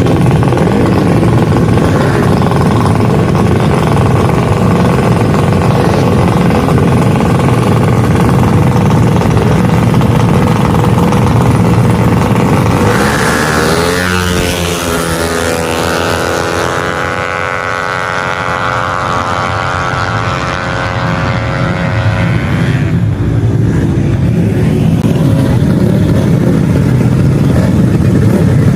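Tuned 155cc automatic scooter engines running loud. About halfway through, one engine's note climbs and then holds high for several seconds before fading back into the rest.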